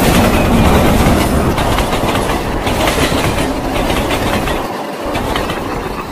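Indian Railways freight train passing close by, its wagon wheels clattering rapidly over the rail joints. The noise eases off a little near the end as the tail of the train goes by.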